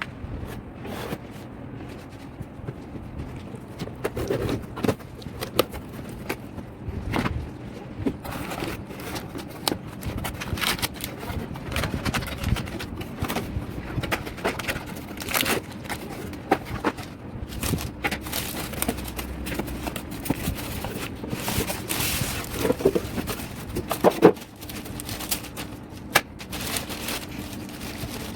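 Hands unpacking a printer from its packaging: irregular scraping, crinkling and knocking of cardboard and plastic.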